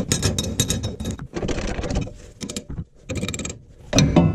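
Quick clicks and metallic clinks of small steel parts, such as the camber/caster bushing, being handled and knocked together. A short louder clink with a brief ring comes near the end.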